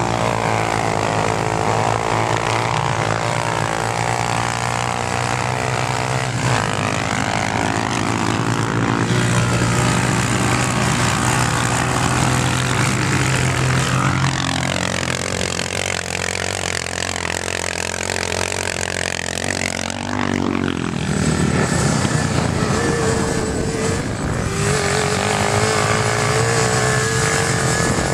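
Quad bike engines running and revving on sand, the pitch dipping and rising in long sweeps as the machines ride past and climb.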